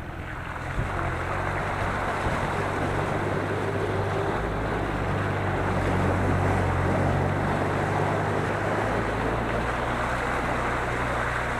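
Motorboat under way: a steady engine hum under the rush of water and wind, the rushing growing louder about a second in.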